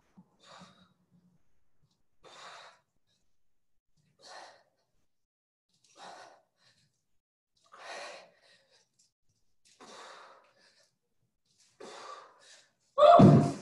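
A person breathing hard during dumbbell thrusters, with one sharp exhale about every two seconds. Near the end comes a much louder sound.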